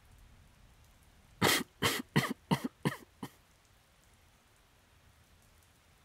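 A man coughing: a quick fit of about six coughs starting about a second and a half in, tailing off toward the end.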